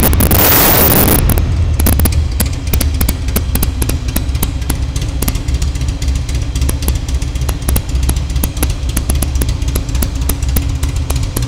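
Buell Lightning 1000cc V-twin running through an aftermarket exhaust: a loud burst of throttle in about the first second, then idling with a deep steady rumble. The exhaust's bass overloads the camera microphone, so the sound is distorted into a crackling hiss.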